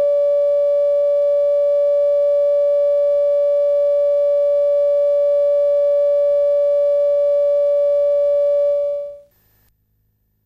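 Steady electronic line-up test tone from the head of a video tape, one held pitch with fainter overtones. It fades out about nine seconds in, leaving only a faint hum.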